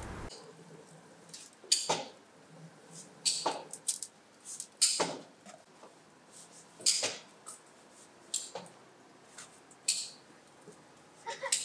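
Footsteps: a child's shoes scuffing and tapping on a concrete floor, irregular sharp scuffs about every second or so.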